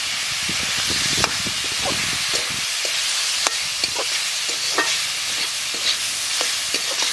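Spiced chicken pieces sizzling as they fry in mustard oil in a steel kadai, with a steady hiss. A metal spatula stirring the pieces gives scattered clicks and scrapes against the pan.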